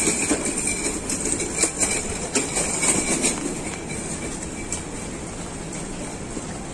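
Busy outdoor street ambience: a steady noisy rumble of traffic and passers-by, with scattered knocks and rustles during the first three seconds or so.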